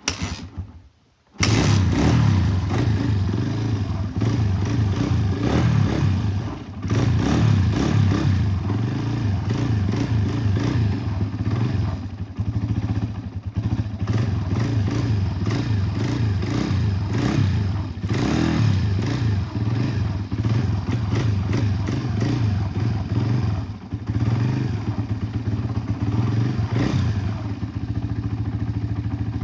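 Dirt bike engine running after its first start in about seven months of storage, the level rising and falling unevenly as the throttle is worked. It cuts in abruptly about a second and a half in.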